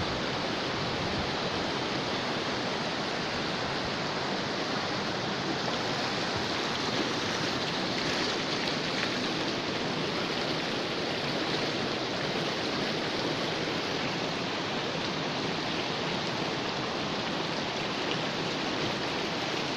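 Shallow mountain stream rushing over pebbles and stones, a steady, unbroken rush of water.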